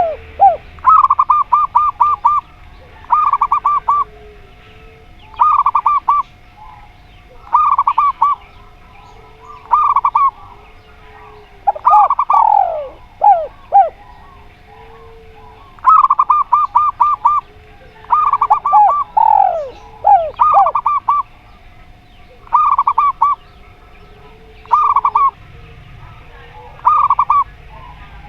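Zebra doves and spotted doves calling: short phrases of rapid trilled cooing notes repeated every couple of seconds, with a few descending whistled notes and faint low coos between them. A faint steady hum runs underneath.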